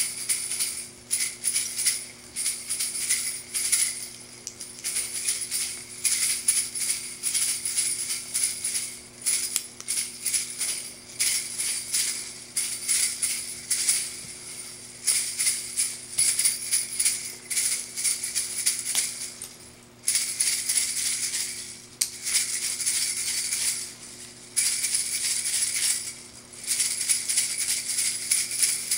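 Background music cuts in suddenly. It is mostly high, rattly, shaker-like percussion in choppy bursts with little bass, over a faint steady low hum.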